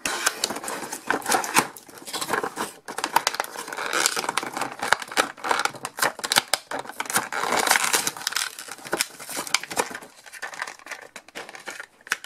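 Toy packaging being opened by hand: cardboard box flaps pulled open and plastic wrapping crinkled and torn, with continual irregular rustling and clicks.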